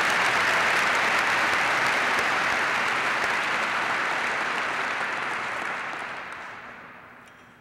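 Audience applauding in an auditorium. The applause holds steady, then dies away over the last couple of seconds.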